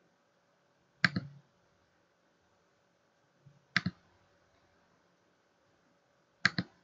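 Computer mouse clicking three times, a few seconds apart. The second and third are quick double clicks, each selecting a new filter thumbnail to preview.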